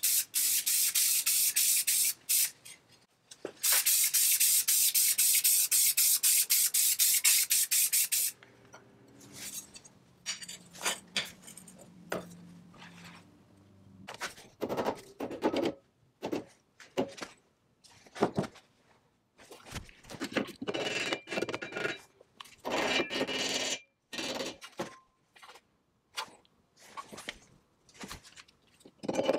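Spray paint hissing in two long passes, with a short break about 3 s in. After that comes a run of short, scattered scraping and rubbing strokes, metal on metal.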